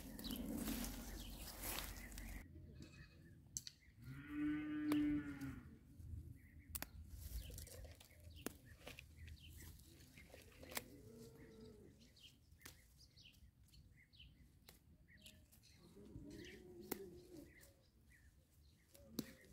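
A cow moos once, loudly, about four seconds in, a call of about a second and a half, with fainter mooing from farther off later. Small scattered clicks and rustles of plants being handled run beneath.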